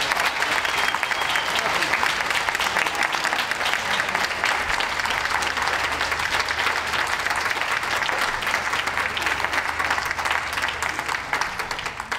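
Audience applauding with dense, steady clapping that dies away near the end.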